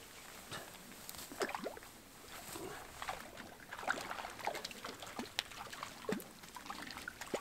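Small irregular splashes and drips of lake water as a just-landed trout is handled at the water's edge.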